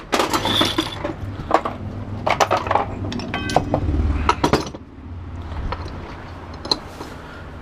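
Small metal parts and screws clinking and tapping as they are handled while a small electric motor is taken apart, with a low hum under the first few seconds.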